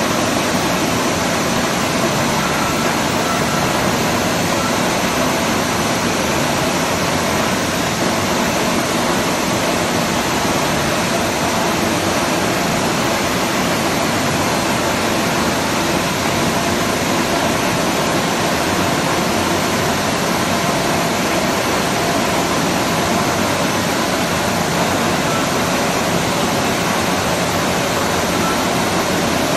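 Large bed-type milling machine running, a steady loud rushing noise with no change in pitch or level.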